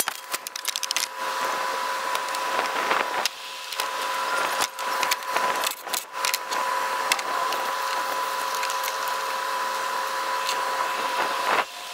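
Clicks and clatter of a cordless power tool and hands working loose a bolted coolant valve, busiest in the first second and again a few seconds in, over a steady high-pitched tone.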